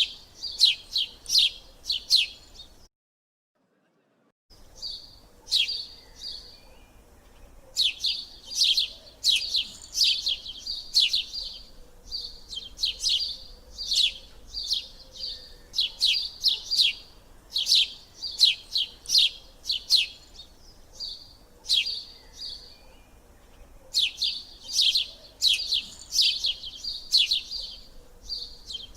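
A small bird chirping in quick runs of short, high chirps, each run lasting a second or two, with brief pauses between runs; the sound cuts out completely for about a second and a half near three seconds in.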